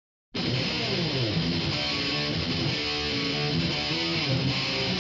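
Instrumental music, starting abruptly about a third of a second in.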